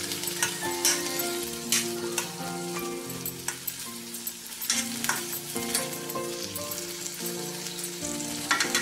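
Chopped tomatoes sizzling in a little oil in an iron kadai, with a metal spoon stirring them and scraping against the pan every second or two.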